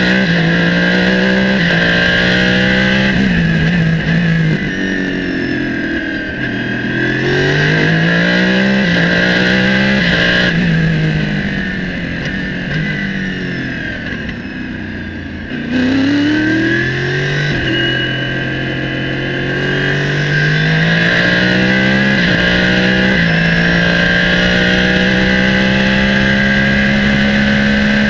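Norma M20 FC prototype's BMW V8 at racing speed, heard onboard: the revs climb and drop with quick upshifts, ease off for a corner between about ten and fifteen seconds in, then surge and pull through several more gears before holding high and steady on the straight.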